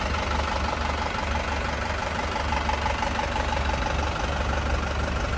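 1993 Isuzu Elf dump truck's 3.7 L diesel engine idling steadily, a low continuous rumble.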